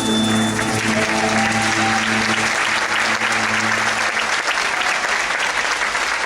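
Music ending with its last held notes while audience applause swells over it. The applause continues until it cuts off abruptly.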